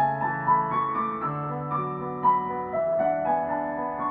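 Piano interlude between verses of a choral song: a slow, gentle melody of single notes over held chords, with no voices.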